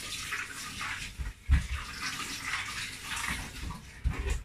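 Kitchen tap running into a stainless-steel sink as plantains are rinsed, a steady splashing hiss. Two dull knocks break in, one about one and a half seconds in and one near the end.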